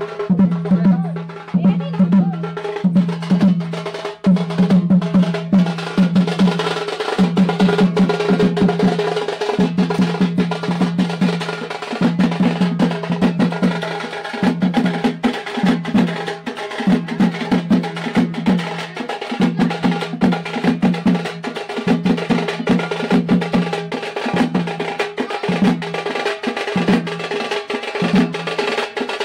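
Fast, continuous drumming: rapid stick strokes on deep-toned drums in a steady, repeating rhythm.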